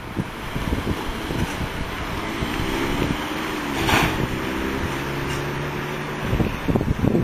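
Vehicle noise from a moving vehicle: an engine running with a hum that shifts in pitch, road noise, and wind rumbling on the microphone. A single sharp click about four seconds in.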